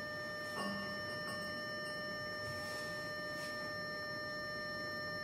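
Steady high-pitched electrical whine made of several constant tones, with a faint click about half a second in.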